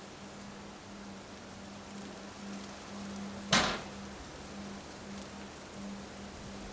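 Steady rushing hiss of a windstorm, with one sharp knock or bang about halfway through.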